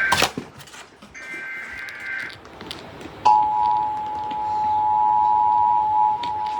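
Emergency Alert System tones played through a TV speaker. About a second in, a one-second burst of the SAME digital header's two-tone data screech. About three seconds in, the loud two-tone EAS attention signal starts and holds steady, announcing the alert.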